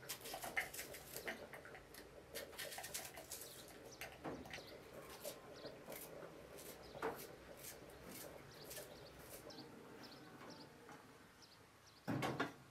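Faint, crisp clicks of a knife slicing a red onion held in the hand, quick at first, then sparser. Just before the end, a louder knock as an aluminium pot is set down on a metal wood stove.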